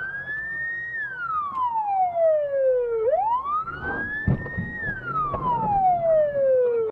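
Police car siren on a slow wail: each cycle climbs quickly in pitch for about a second, then slides down slowly for about two seconds, heard twice. A few dull knocks sound underneath about halfway through.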